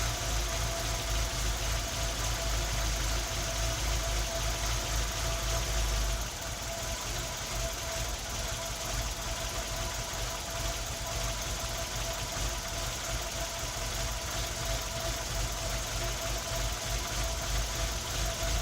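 Nissan Tino's engine idling with an uneven, stumbling beat: the engine is misfiring. About six seconds in it drops a little quieter.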